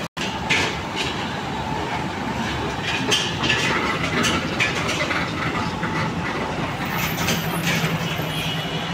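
Heavy trucks passing close by on a rough road: diesel engine noise with repeated clanking and rattling from the flatbed trailers. The sound cuts out for a moment right at the start.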